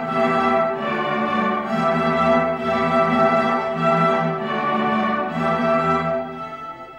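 String orchestra of violins and cellos playing together, bowing held chords; the playing gets much quieter near the end.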